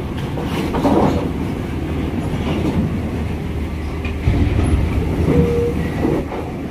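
A large coach's engine running as it crawls slowly over a steel ferry loading ramp, with clanks and rattles from the metal ramp plates under its wheels, loudest about a second in and again past the four-second mark.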